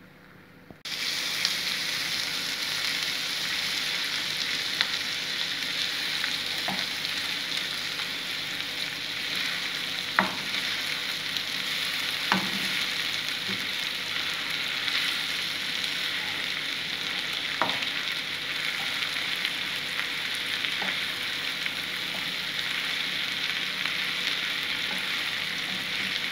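Sliced onions frying in a pan with a steady sizzle that starts suddenly about a second in, while a wooden spatula stirs them. The spatula knocks against the pan a few times.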